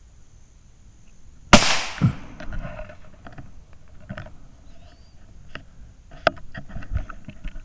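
A single .17 HM2 rimfire rifle shot about one and a half seconds in: a sharp crack, the loudest sound. A dull thump follows half a second later, then scattered light clicks and rustles.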